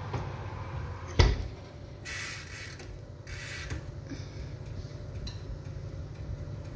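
Oven door swung shut with one loud thud about a second in, over a low steady hum; two short hissing rushes follow.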